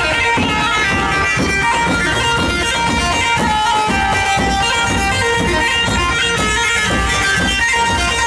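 Live dabke music: a reedy, droning wind melody over a steady drum beat.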